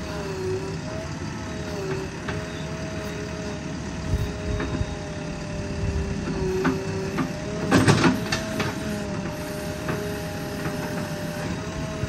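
JCB 3DX backhoe loader running while it works soil, its engine and hydraulics giving a steady, slightly wavering whine, with scattered knocks and a loud clatter about eight seconds in.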